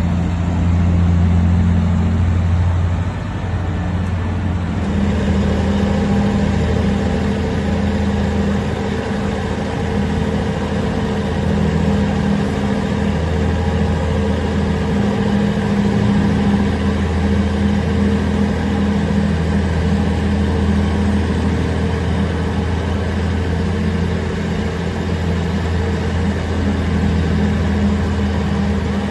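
The Big Bud farm tractor's large diesel engine running steadily with a heavy, deep note. Its tone shifts slightly about five seconds in, then holds steady again.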